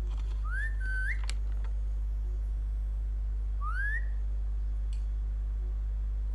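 Two short rising whistles, the first about half a second in ending in a brief held note, the second near four seconds in, over a steady low hum.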